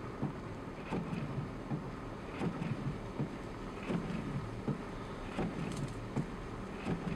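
Footsteps crunching on a thin layer of snow at a steady walking pace, about one step every three-quarters of a second, over a steady low rumble of wind on the microphone.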